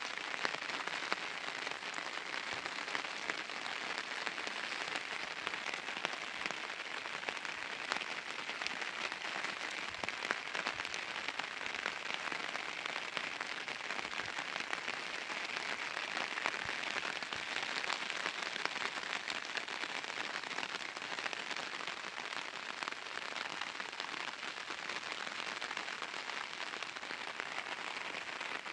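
Steady rain falling on a surface: a dense, even hiss made up of many small ticks of drops.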